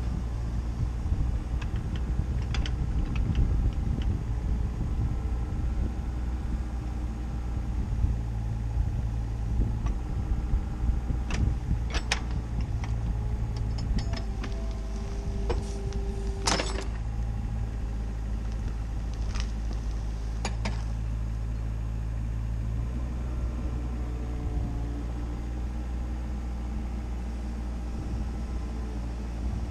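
CAT 304CR mini excavator's diesel engine running steadily under hydraulic load as the boom drags a log. A few sharp knocks and clanks stand out in the middle, and the engine note eases down a little near the end.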